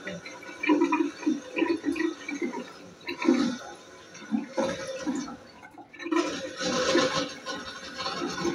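Tap water running and splashing in a bathroom sink while someone washes, with a short break about two-thirds of the way in before the water noise comes back.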